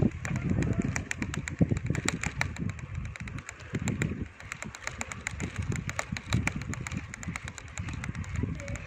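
Wind buffeting the microphone of a bicycle rolling downhill, with dense, irregular clicking and rattling from the bike.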